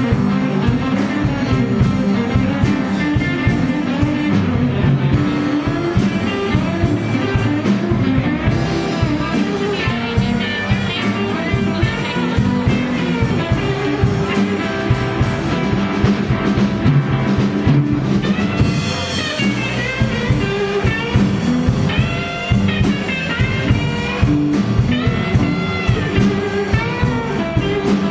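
Live blues band playing an instrumental passage: electric guitars, electric bass, keyboards and drum kit, with no vocals. A high lead line slides up and down in pitch over the band, most plainly in the second half.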